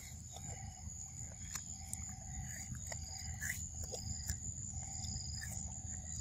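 Steady high-pitched insect drone over a low rumble, with scattered small clicks and a brief chirp about three and a half seconds in.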